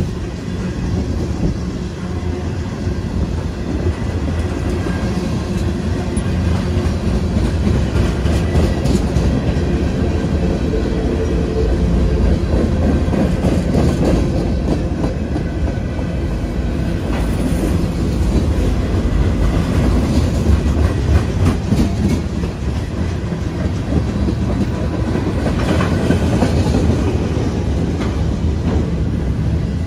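Freight cars of a Norfolk Southern manifest train (tank cars, boxcars, gondolas) rolling past, a steady rumble with wheels clicking over the rail joints.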